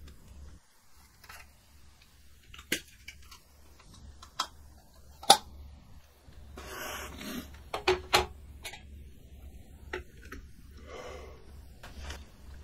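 A man smoking a joint at a table: scattered small clicks and taps from handling things, the loudest about five seconds in, and a long breathy rush of drawing on and blowing out smoke about seven seconds in, with a softer breath near eleven seconds. A low hum runs underneath.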